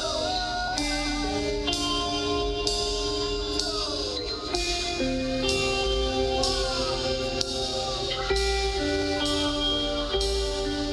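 Rock band playing an instrumental passage without vocals: electric guitar holding and sliding between sustained notes over drums, with cymbals struck about once a second.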